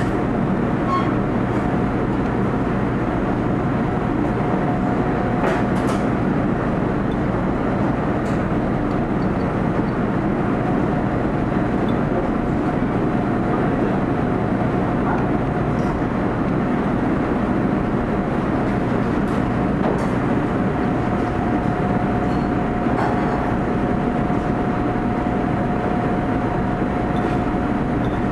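Steady drone of commercial kitchen ventilation and equipment: a constant rush with a faint, steady high whine running under it, and a few faint clicks.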